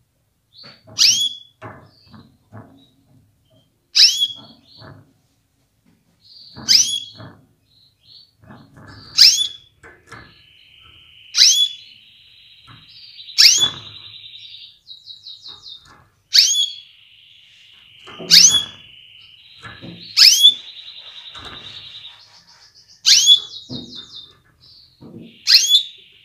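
Female canary calling: a sharp call that falls steeply in pitch, repeated about every two and a half seconds, eleven times. It is the call used to stir male canaries into breeding condition and full song. From about ten seconds in, a softer rapid trill runs behind the calls, with faint low knocks between them.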